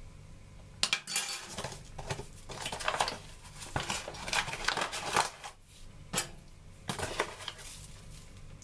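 Foil coffee bag crinkling in the hand as ground coffee is shaken out into a drip coffee maker's filter: a run of short, irregular crackles and rustles.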